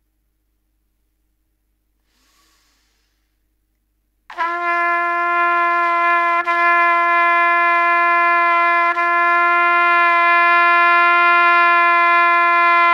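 A quiet breath in through the nose, then a trumpet plays one long, steady note, lightly re-tongued twice without a break in the sound. This is a breath-attack exercise: breath, note, tongue, with the jaw and embouchure held still to learn the pitch.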